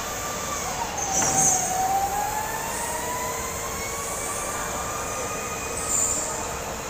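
Go-kart motor whining as a kart passes close by, its pitch dipping and then climbing slowly as it speeds away down the track. A brief high screech and a knock come about a second in, and another short screech near the end, over a steady hum.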